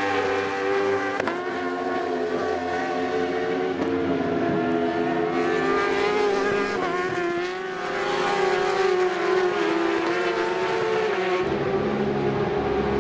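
Superbike racing motorcycle engines at high revs as bikes run past, the engine note rising and falling in pitch with throttle and gear changes.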